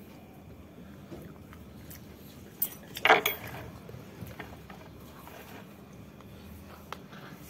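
Quiet eating by hand: faint chewing and small clicks as food is picked from a plastic plate, with a brief loud clatter about three seconds in.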